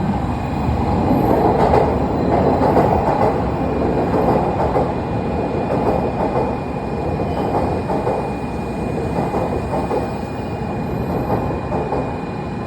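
N700 series Shinkansen train running, a steady rumble of wheels on rail with a faint steady whine above it.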